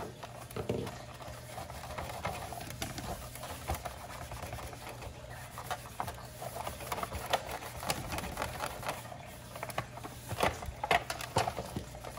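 A damp cloth rubbing over a Big Mouth Billy Bass's wood-grain base plaque, with scattered clicks and knocks as the plaque and its wiring are handled; the sharpest clicks come near the end.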